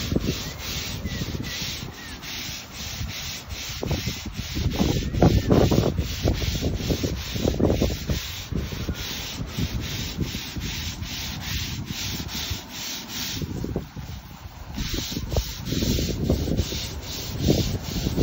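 Stiff-bristle deck brush scrubbing wet composite decking back and forth, about three strokes a second, with a short pause a little after the middle. Bouts of low rumble come and go underneath.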